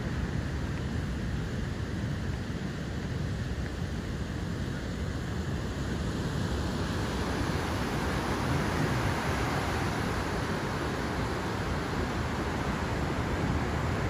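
Heavy ocean surf breaking and washing ashore, with wind rumbling on the microphone; the hiss of the white water grows fuller about halfway through.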